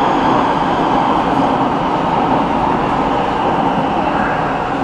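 Warsaw Metro train running with a steady rumble.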